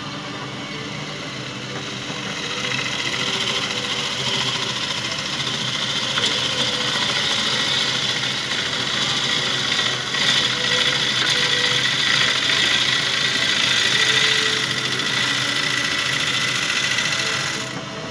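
Wood lathe running while a gouge cuts into a spinning pepper-tree bowl blank: a steady, rough shaving hiss over the motor's hum. The cut grows louder a couple of seconds in and eases off just before the end.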